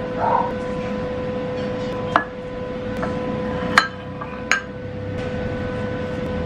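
Ceramic bowls and a plate clinking as they are set down on a hard countertop: three sharp clinks, about two seconds in, near four seconds and shortly after. A steady hum runs underneath.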